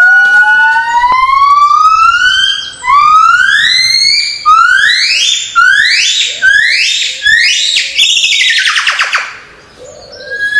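Gibbon singing: one long rising whoop, then a run of rising notes that come shorter and faster, climaxing about eight seconds in with a quick, high trill that falls away before a short pause.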